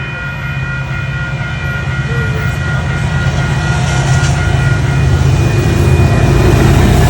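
Electronic railroad crossing bell (WCH Type 1 E-bell) ringing as a train approaches. The train's low rumble grows steadily louder and drowns out the bell about five seconds in.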